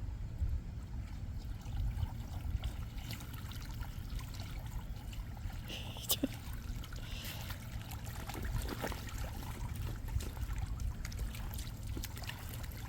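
Water from a garden hose running and trickling steadily into an inflatable kiddie pool as it fills, with scattered small splashes.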